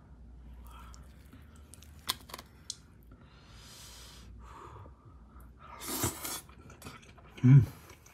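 Someone eating with chopsticks over a rice bowl: a few light clicks about two seconds in, breathy noises, and a short, loud low thud near the end.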